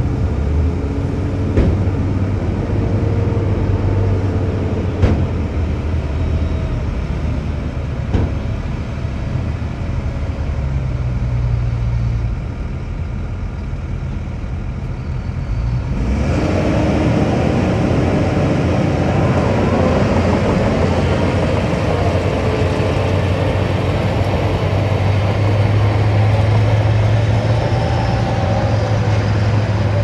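Heavy diesel truck engines running steadily while a dump truck tips its load of dirt, with a few sharp knocks in the first half. About halfway through the sound changes abruptly and becomes fuller and noisier.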